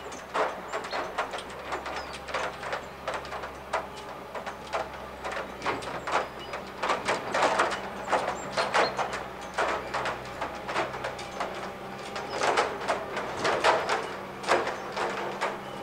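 Distant chuffing of the two-cylinder class 52 steam locomotive 52 8154-8 working its train: a run of sharp, uneven exhaust beats. The beats grow louder about halfway through and again near the end.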